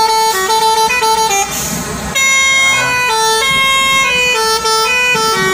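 Lorry 'telolet' musical horn playing a quick tune of steady notes that step from pitch to pitch. It breaks off briefly with a short hiss about a third of the way in, then starts another tune on different notes.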